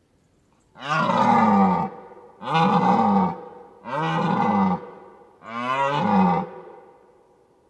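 A deer calling four times in loud, deep, drawn-out bellows, each about a second long, with the pitch dipping down at the end of each call.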